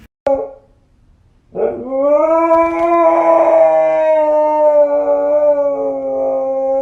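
A dog giving one long, steady howl, starting about a second and a half in. A short sharp click comes just before it.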